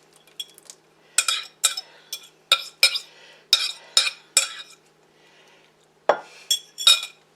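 A utensil scraping and knocking against a mixing bowl as the thick clam-and-corn casserole mixture is scooped out: a run of about nine sharp clinks and scrapes, a short pause, then three more near the end.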